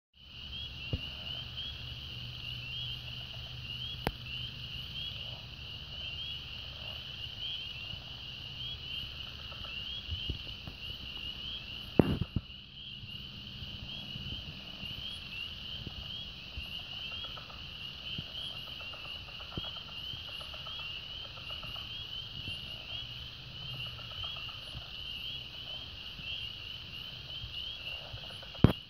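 A dense chorus of frogs calling, a steady high-pitched shrill with a fast trilling texture, over a low rumble. Two sharp knocks cut in, about twelve seconds in and near the end.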